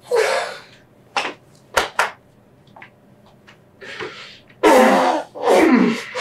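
A man sobbing during a hug: a loud sob at the start, three short sharp gasps a little after a second in, then two longer sobs that fall in pitch near the end.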